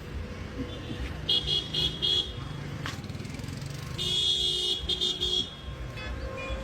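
Street traffic rumbling, with a vehicle horn tooting four quick times about a second in, then a longer horn blast about four seconds in.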